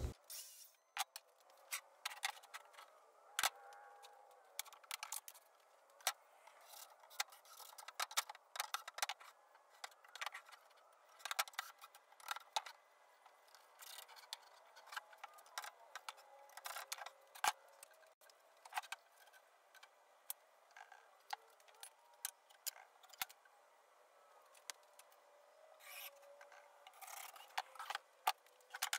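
Faint, irregular clicks, taps and light scrapes of tools and building materials being handled during hand work on the coop roof, thin-sounding with no bass.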